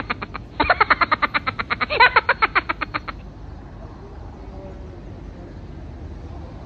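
An edited-in comic sound effect: a rapid, pitched rattling of about ten pulses a second that stops about three seconds in, leaving faint background noise.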